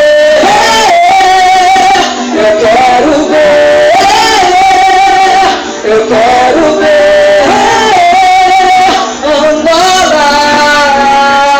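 Live group singing: voices holding long notes, each about a second or two, and sliding from one pitch to the next, over instrumental backing.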